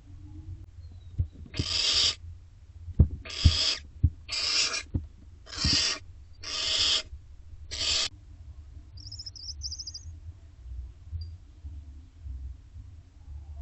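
Barn owlets in a nest box giving six hissing screech calls, about one a second, with a few light knocks between them.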